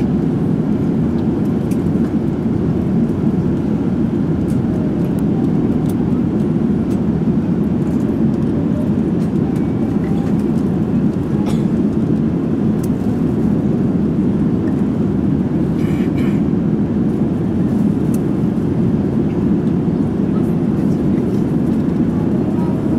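Steady cabin noise inside a Boeing airliner in its climb: an even rush of engine and airflow noise, strongest low down. A few faint clicks, with a short run of faint ticks about 16 seconds in.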